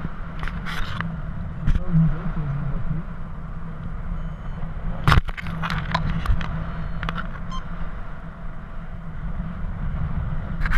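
Wind rushing over the camera microphone of a paraglider in flight, a steady low rumble, with scattered clicks and rustling from the riser straps against the camera and a sharp knock about five seconds in.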